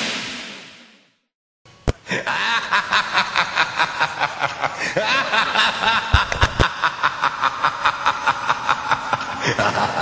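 Electronic music fades out in the first second; after a short silence a person laughs in a long, unbroken run of short snickers, about four a second.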